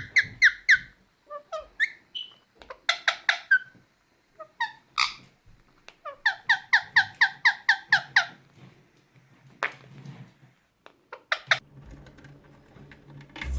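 Parrots calling in runs of short, sharp, repeated squawks, about five a second, with short pauses between runs. Faint music comes in near the end.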